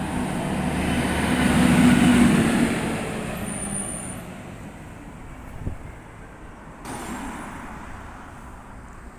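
A rail replacement bus drives past. Its engine hum and tyre noise swell to their loudest about two seconds in, then fade away.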